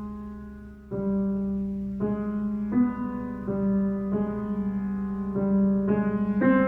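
Solo piano playing slow, soft chords: a chord dies away, then about a second in new notes begin entering roughly once a second over a sustained low note.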